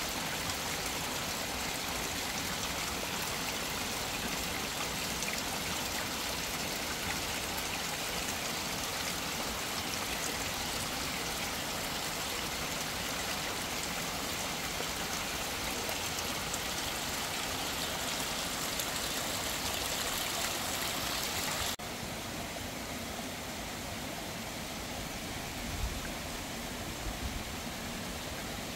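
Fast river water rushing, a steady hiss of running water. About 22 s in, the sound cuts abruptly to a quieter, duller rush, with a few low thumps near the end.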